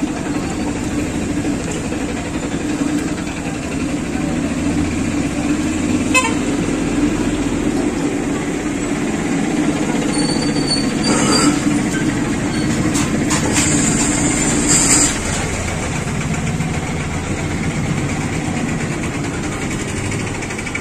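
Sev frying in a large iron kadhai of hot oil on a gas stove: a steady sizzle and burner roar, with a few metal clinks of the long-handled skimmer against the pan around the middle.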